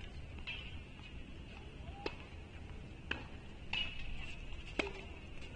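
Quiet outdoor ambience, a low steady rumble, broken by three sharp, short knocks a second or more apart.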